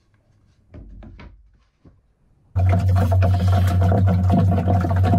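Faint handling of plywood boards, then a loud steady mechanical hum with a noisy hiss over it, starting abruptly about two and a half seconds in.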